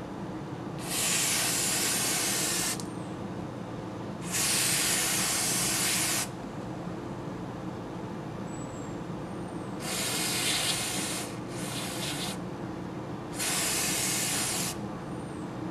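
Aerosol can of non-chlorinated brake cleaner spraying in five hissing bursts of one to two seconds each, degreasing a bayonet.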